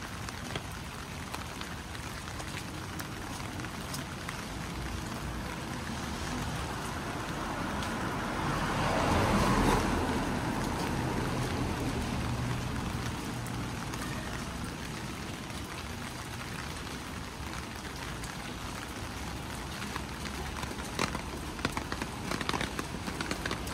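Steady rain falling on a city street, with a car passing on the wet road about nine seconds in: its tyre hiss swells and fades and its engine hum trails off. Sharper drips and taps come near the end.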